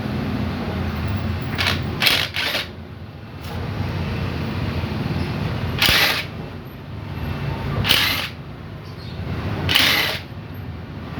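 Sharp metallic clicks and clinks from engine parts and hand tools being handled during a motorcycle engine teardown: two close together about two seconds in, then single ones about every two seconds. A steady low rumble runs underneath.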